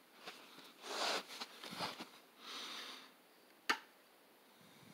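Handling noise from a die-cast toy truck: a few soft hissing noises in the first three seconds, then one sharp click near the end as the truck's tilting hood is swung open.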